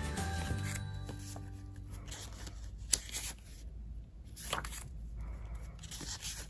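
Sheets of printed craft paper being leafed through by hand: light rustles and paper snaps, the sharpest about three seconds in. Soft background music fades out in the first second.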